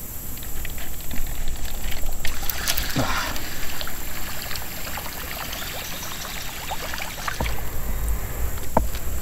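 Water trickling and lapping around a kayak as a paddle is dipped and worked beside the hull, with scattered small splashy clicks. A short exclamation ("Ah") about three seconds in, and a low rumble near the end.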